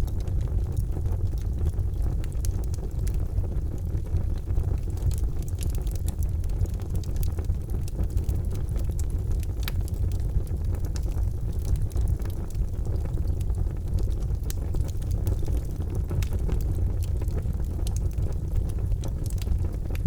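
Charcoal fire burning in a fireplace: a steady low rumble with scattered small crackles and pops.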